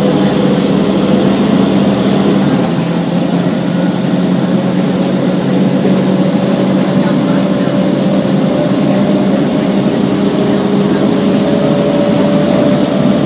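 1999 Gillig Advantage transit bus running, its Cummins M11 diesel engine and Allison B400R automatic transmission heard together with a steady low hum. A high whine falls away in the first few seconds, and the engine's pitch climbs slowly near the end.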